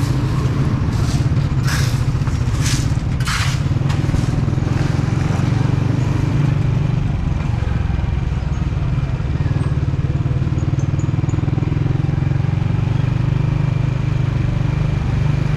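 Motorcycle engine running steadily at low road speed in street traffic, close to the microphone. Several short rushes of noise come in the first three or four seconds.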